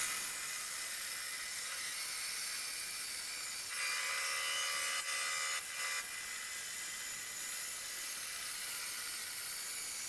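Benchtop bandsaw running steadily, its blade cutting a curve through a wooden board. The sound swells slightly, with a faint whine, for a second or two in the middle of the cut.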